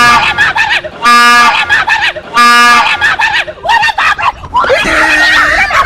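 A fake train horn blasted three times in short, loud bursts about a second and a half apart, with people screaming between the blasts and a jumble of shrieks near the end.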